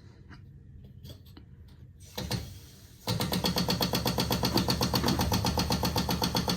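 Rapid, even knocking from inside a wall, about ten knocks a second, starting suddenly about three seconds in after a single knock and a few faint ticks.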